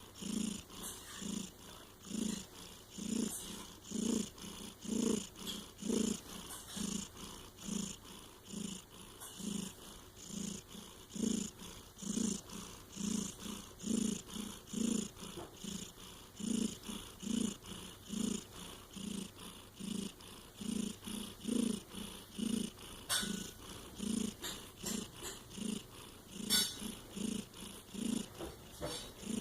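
A small pet snoring in quick, even breaths, about three every two seconds, each breath a low rumble alternating with a hiss.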